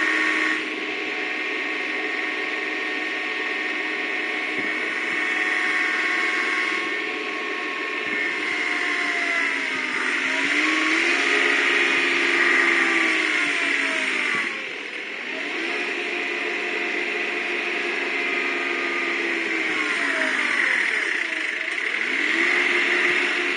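Engine of an 18 hp four-wheel-drive compact tractor running under load as it pulls on a chain wrapped around a stump, its revs rising and falling about three times. The straight pull does not free the stump.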